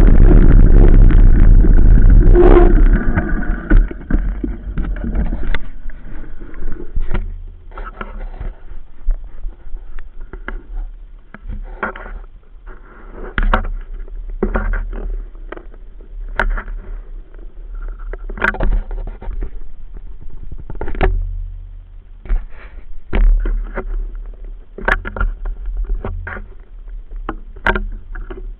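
Enduro motorcycle riding, heard through a handlebar-mounted action camera: loud engine and wind noise for the first three seconds, then a quieter low running rumble broken by frequent irregular knocks and rattles.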